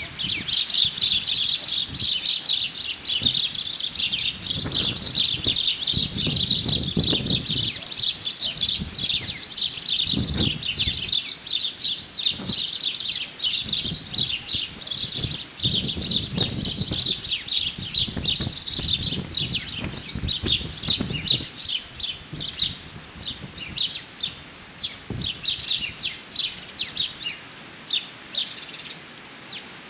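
Many small birds chirping rapidly and continuously, a dense chatter of short high calls that thins out and stops near the end. A dull low rumble comes and goes underneath.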